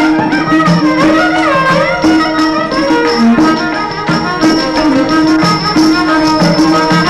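Yakshagana dance accompaniment from a small traditional Indian ensemble: quick, dense drum strokes under steady held notes, with a melody that slides up and down.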